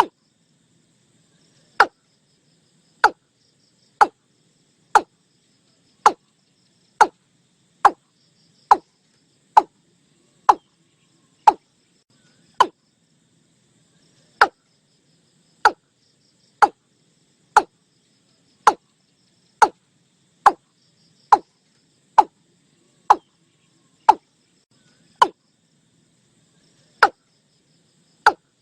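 Watercock calling: a long series of short, sharp notes, each falling in pitch, repeated about once a second with a couple of brief pauses.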